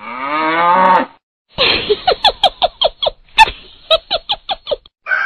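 A woman's high voice rising in pitch for about a second, then, after a short pause, a run of high-pitched laughter in quick bursts.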